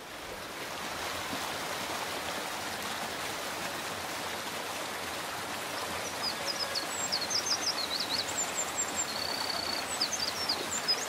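Mountain stream running over rocks, a steady rush. From about six seconds in, small birds sing over it: high chirps, quick trills and one short buzzy note.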